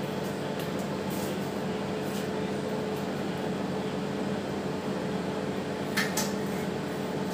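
IFB 23BC4 convection microwave oven running with a steady hum, with one sharp click about six seconds in.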